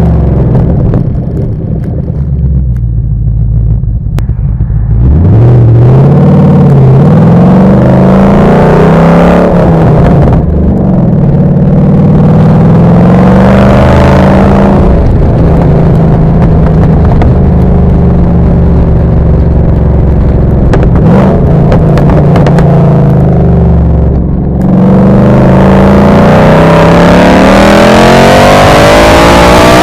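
Ford Mustang Boss 302's V8 exhaust under hard acceleration, pitch rising as the revs climb. It drops back at gear changes about a third of the way in and again near the end, then climbs once more. The exhaust is modified: SLP Loudmouth axle-backs and side pipes running open with resonators and restrictors removed.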